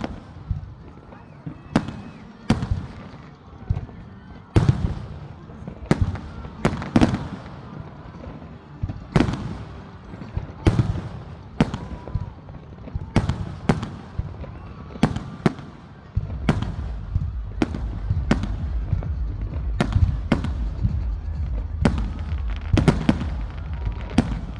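Fireworks display: a running series of sharp bangs and cracks, about one or two a second, each trailing off briefly. About two-thirds of the way through, a steady low rumble joins in underneath.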